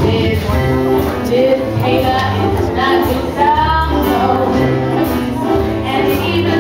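A woman singing a jazz song into a microphone, her held notes wavering with vibrato, accompanied by grand piano and acoustic guitar.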